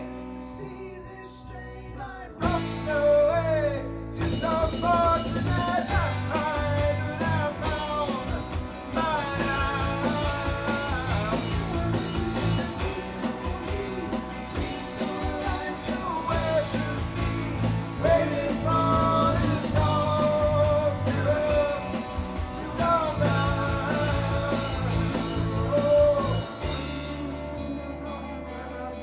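A rock song playing, with a sung lead melody over guitar, bass and a steady drum beat. It is quieter for the first couple of seconds, then the full band comes in, and it thins out near the end.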